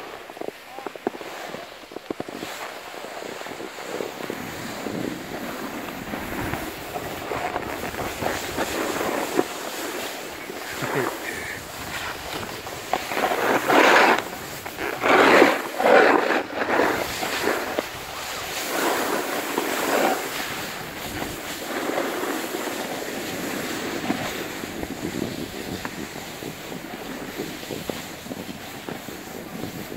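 Skis sliding and scraping over hard-packed snow, a steady rushing hiss with louder swells of scraping about halfway through, mixed with wind on the microphone.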